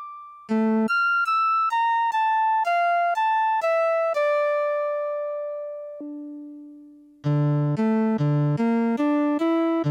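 Suiko ST-50 koto synthesizer playing a melody of separate notes: a run of about nine notes roughly half a second apart, then a long held note that fades out. After a lower note, a quicker run of fuller, deeper notes begins about seven seconds in.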